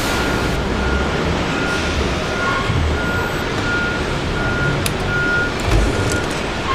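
A vehicle's reversing alarm beeping on one steady tone about every two-thirds of a second, over steady engine rumble and noise.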